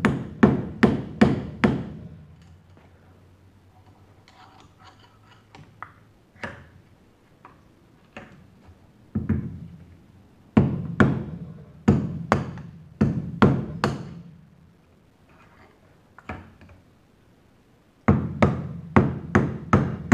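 Hammer blows on a screwdriver driving the bottom bearing out of a John Deere X300 mower deck spindle's aluminum housing: sharp metal strikes in bursts of several a second, with pauses between the bursts.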